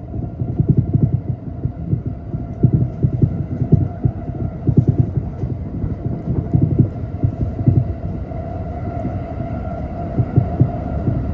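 Electric commuter train heard from inside the carriage while running: a steady low rumble with irregular knocks and thumps of the wheels on the track, and a steady hum that grows a little louder about eight seconds in.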